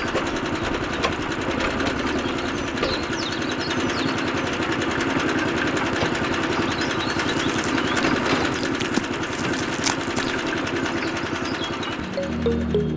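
Small motor of a home-built miniature tractor running steadily, a buzzing whir with fast gear chatter; it gives way to music just before the end.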